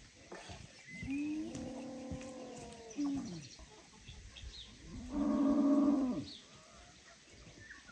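Cow mooing twice: a long call about a second in, then a louder, shorter one about five seconds in. Faint bird chirps can be heard between the calls.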